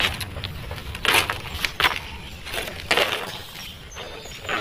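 Footsteps crunching on dry dirt and debris: about six short, uneven crunches roughly half a second to a second apart, over a low steady rumble on the microphone.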